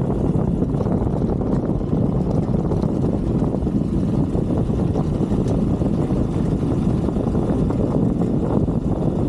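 Brixton 125cc motorbike riding steadily off-road, its engine and tyre noise mixed with wind buffeting the microphone.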